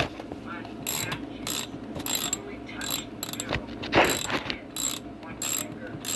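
Oleo-Mac 240 two-stroke chainsaw's recoil starter being pulled in a series of short strokes, the rope whirring and the starter pawls clicking as the engine turns over without firing. This is typical of turning a no-start saw over to feel for compression.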